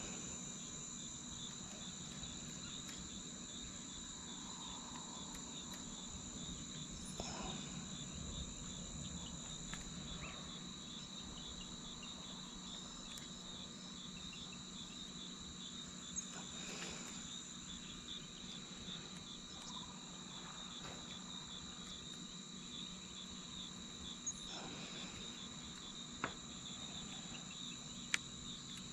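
Insects chirping in a steady, fast pulsing high trill, with a low steady hum underneath and a few faint clicks.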